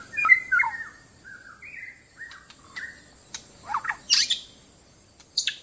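White-rumped shama (murai batu) singing a string of short, varied whistled phrases, loudest at the start and again about four seconds in; the caged bird is answering a wild shama.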